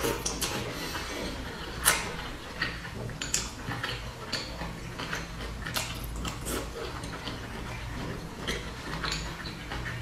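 Eating boiled dumplings: wet chewing and lip-smacking, with irregular clicks of chopsticks against a glass dipping bowl.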